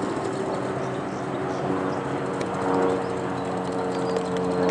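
1-inch-scale live steam locomotive running along the track with a loaded train of riders: a steady low hum with faint, rhythmic clicking.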